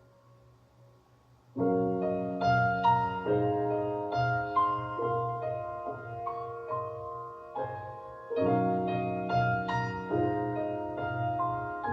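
Solo piano music: after a quiet start, a chord comes in suddenly and the phrase continues with sustained notes, and a second phrase starts with another chord about eight seconds in.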